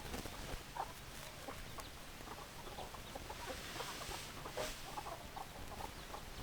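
Chickens clucking: many short, overlapping clucks from several hens.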